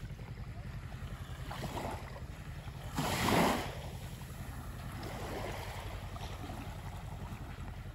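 Small waves lapping on a sandy shore, one washing in louder about three seconds in, over a steady rumble of wind on the microphone.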